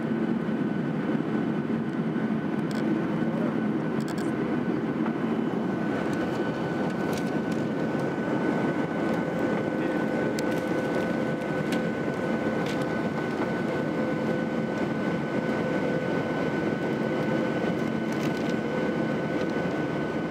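Steady cabin noise of a jet airliner in flight: the drone of the underwing turbofan engines and the rush of air, with a thin steady whine above it. A few faint clicks are heard.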